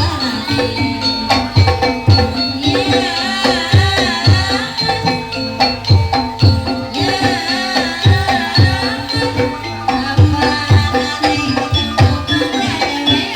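Javanese gamelan music accompanying a kuda lumping dance. Hand-played kendang drums beat a steady, driving rhythm under ringing metallophone tones, and a high wavering melody line comes in twice.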